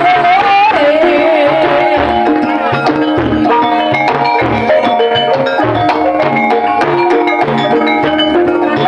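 Loud live traditional music through a sound system, too loud for the recorder: a singer's wavering voice in the first two seconds over pitched metallic percussion and repeated hand-drum strokes.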